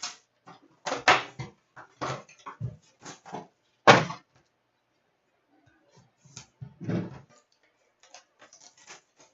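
Handling and opening the packaging of a box of hockey trading cards: a run of irregular rustles, scrapes and knocks of cardboard and wrapper, loudest about four seconds in.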